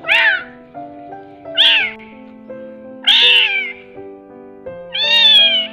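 A young kitten crying: four loud meows about a second and a half apart, the last one the longest, over background music.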